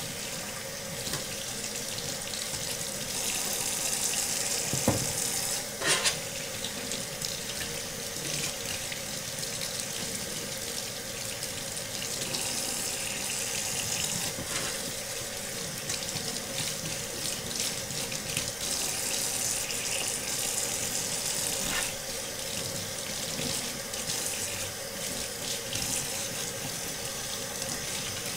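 Kitchen faucet running into a stainless steel sink as a brass trumpet is rinsed under the stream, the water splashing over the instrument and into the sink. A couple of short knocks come about five and six seconds in.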